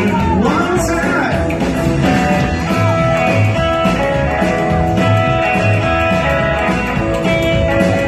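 A live rock and roll band playing a boogie. A sung line bends through the first second or so, then guitar carries on over steady bass notes.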